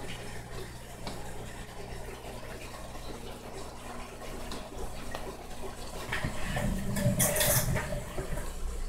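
Aquarium water bubbling from rising air bubbles over a steady low hum. A louder, sharper stretch of noise comes about six to eight seconds in.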